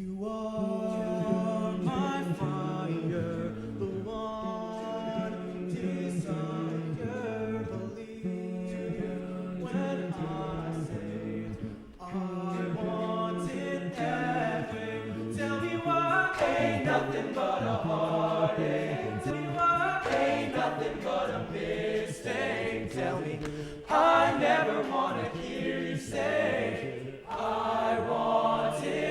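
Male a cappella vocal group singing close harmony, with sharp clicks keeping a steady beat, growing louder about halfway through.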